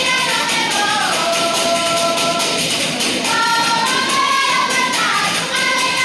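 Several women's voices singing a Galician ruada together in long held notes, sliding between pitches, over a steady beat of pandeiretas (jingle tambourines).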